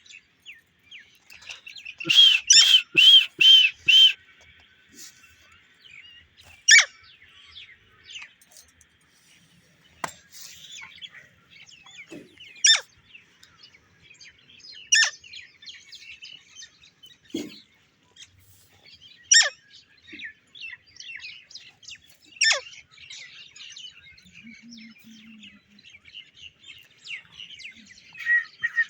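A parrot calling: a rapid run of about seven shrill screeches about two seconds in, then single sharp calls falling in pitch every few seconds, with softer chattering between them. Another fast run of notes starts near the end.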